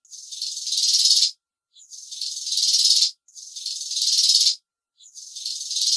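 A grasshopper stridulating: high-pitched rasping phrases, each a little over a second long, growing louder and then stopping abruptly, repeated about four times with short gaps.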